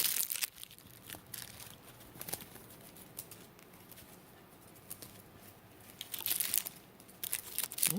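Rustling and crinkling with scattered light clicks and scratches, loudest right at the start and again about six seconds in.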